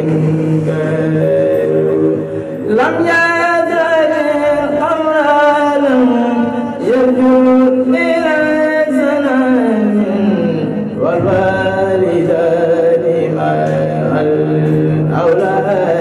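A man chanting solo into a microphone in long, drawn-out lines that slide and ornament up and down in pitch, over a steady low held tone.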